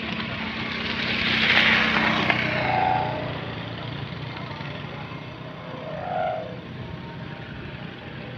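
Sendaren kite hummer with a mica ribbon droning steadily on a 2.5-metre kite high overhead, with a couple of brief higher-pitched swells. A rush of wind on the microphone swells about a second in.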